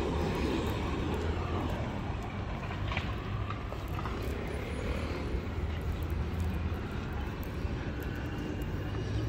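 City street traffic noise: a steady low hum of vehicles with no single event standing out.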